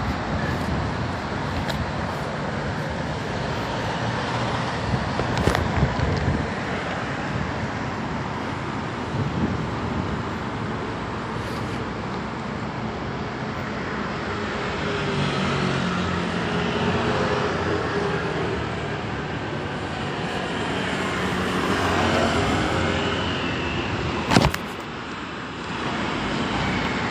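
Steady road traffic noise, with an engine hum rising and fading in the middle and a sharp knock near the end.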